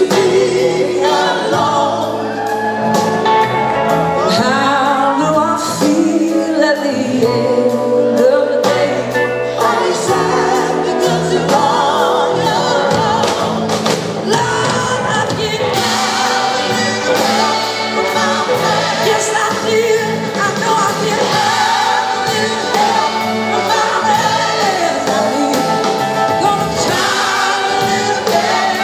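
Live band in full performance with group singing: lead and backing singers over drums, band and horn section, recorded loud from the audience.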